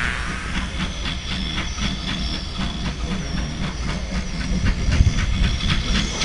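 Former GWR 2-8-0 tank engine 5224 making an odd steam noise: a hiss chattering in rapid, even pulses, about four a second.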